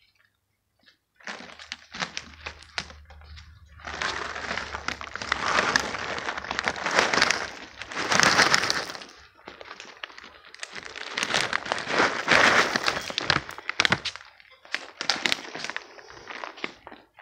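Dry cat kibble being shaken out of a crinkling plastic bag and scattering onto stone paving: a dense crackle of rustling and small hard clicks. It starts about a second in and swells loudly several times.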